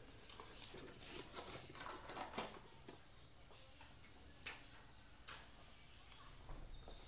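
Packaging rustling and crinkling as the phone and its accessories are handled in the opened box, strongest in the first two seconds or so, followed by a few light taps and clicks.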